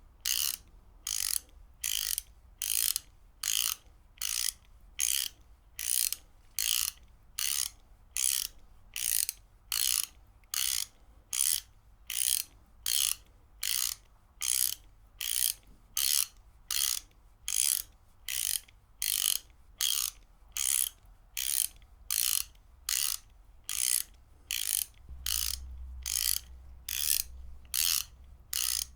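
Ratchet wrench clicking in short, evenly repeated ratcheting rasps, about two a second.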